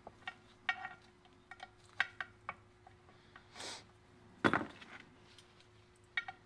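Pliers and hand tools clicking and clinking against steel cotter pins and clutch dogs inside a cast-iron tractor clutch pulley while the pins are worked out, with one louder clank about four and a half seconds in.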